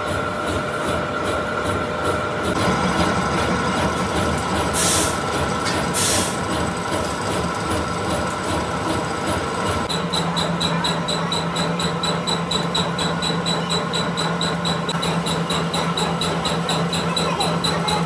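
Machine-shop lathe running while machining a crankshaft: a steady mechanical drone with a high whine, and two short hisses about five and six seconds in. About halfway through the sound settles into a steadier hum with a high tone and fast even ticking.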